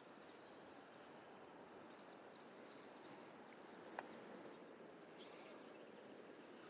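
Faint outdoor ambience: a steady soft hiss with scattered short, high bird chirps, and one sharp click about four seconds in.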